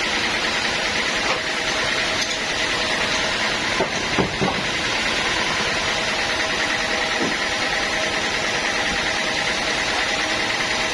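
Sawmill machinery running steadily with a constant high whine, and a couple of brief knocks about four seconds in.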